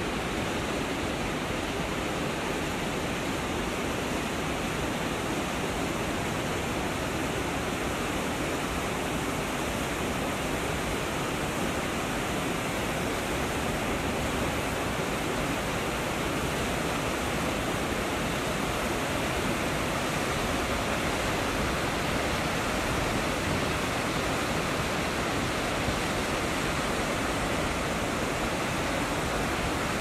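Snake River falls: water cascading over low falls and rocks, a steady rushing sound that does not change.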